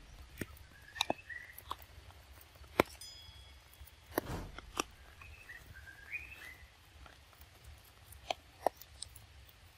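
A macaque biting and chewing a fresh fruit rind: scattered sharp crunches and snaps, the loudest a little under three seconds in. Short high chirps come in around one second and again about six seconds in.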